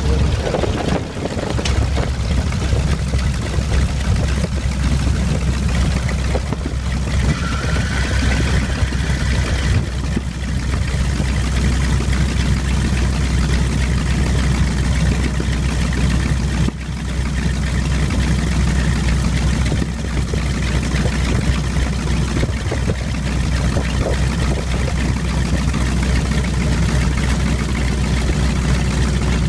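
Wright R-1820 Cyclone nine-cylinder radial engine of a T-28C Trojan running steadily at low taxi power, heard from inside the open cockpit as a deep, even rumble.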